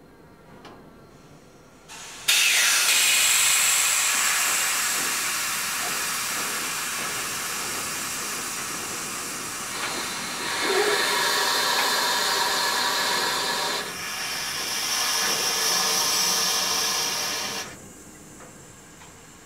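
Air brakes on a loaded grain hopper wagon hissing as compressed air vents from the brake equipment. The hiss starts suddenly about two seconds in, shifts in pitch twice, and cuts off sharply near the end.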